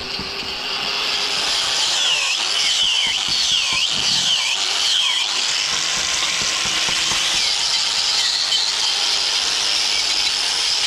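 A handheld power tool running steadily, its high whine dipping in pitch and recovering several times.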